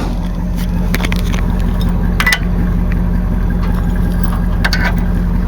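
Truck engine idling steadily, with a few short metallic clicks and clanks from hitching the trailer's coupler.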